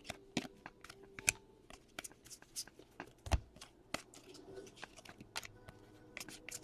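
Trading cards being handled and flipped through by hand: a quick, irregular run of light card clicks and slaps, with a dull knock a little over three seconds in.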